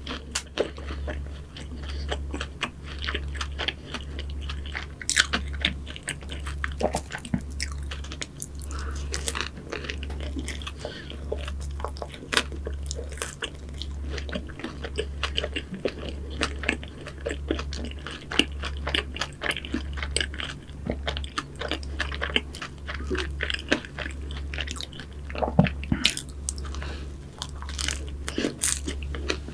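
Close-miked eating sounds: repeated bites into flaky pastries such as cruffins and financiers, with crisp crunches and chewing, in many short irregular clicks.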